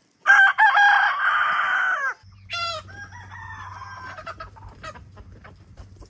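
A rooster crows once, loudly: a few short opening notes and then a long held note that drops away at the end. Shorter chicken calls follow, a brief squawk and then softer clucking.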